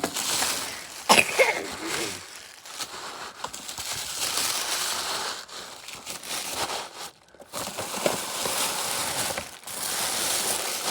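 Packaging crinkling and rustling in irregular swells as a present is opened and unwrapped by hand, with a brief lull about two-thirds of the way in.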